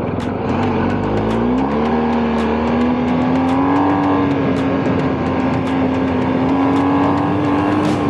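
BMW R 1250 GS boxer-twin engine revving up over about a second, then running at a steady, slowly rising speed, with scattered sharp clicks over it.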